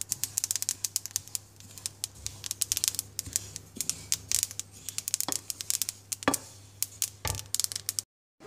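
Wooden spoon stirring sesame seeds as they dry-toast in a non-stick pan, making quick, irregular scraping and clicking. The seeds are nearly toasted.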